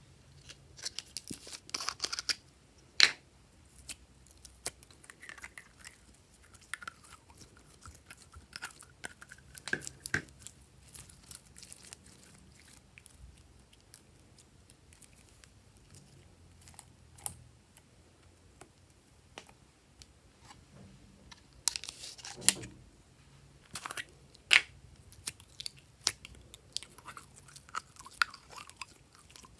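Glossy slime being handled by hand: scattered sticky clicks, crackles and small pops as it is pressed and stretched, with a few louder snaps near the start and again past the middle.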